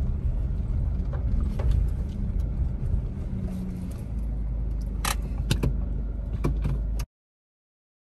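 Car driving slowly over a rutted grass track, heard from inside the cabin: a steady low rumble with a few sharp knocks and rattles, about five to six and a half seconds in, as it bumps along. The sound cuts off suddenly near the end.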